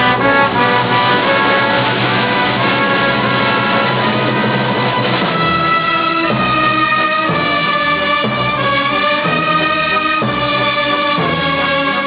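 Symphony orchestra playing. From about six seconds in it settles into held chords in a steady pulse.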